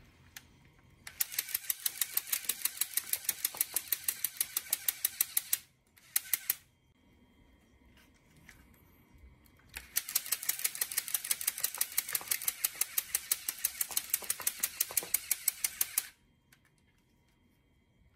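LEGO MP5 toy gun firing full auto: a fast, even rattle of mechanical clacks, about seven a second, in a long burst, a short one, and another long burst after a few seconds' pause.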